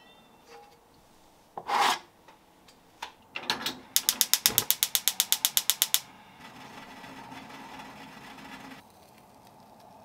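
Gas stove burner being lit: the igniter clicks rapidly, about nine clicks a second for two seconds, then the burner catches and the flame hisses steadily for nearly three seconds before cutting off. A single knock comes about two seconds in.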